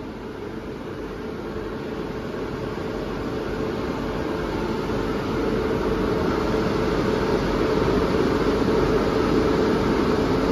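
WAP7 electric locomotive running: a steady fan-like roar with a humming note, growing steadily louder.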